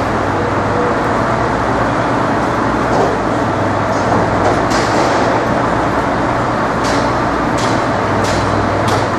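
Heavy machinery running steadily: a loud, even rumble with a low hum underneath and a few faint clicks.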